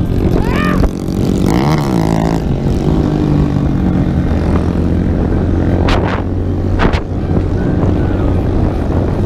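Small 125 cc single-cylinder minibike engine running while riding, over a steady hiss of wind noise. The revs swing up and back down about a second and a half in, then hold steady. Two short sharp chirps come about a second apart later on.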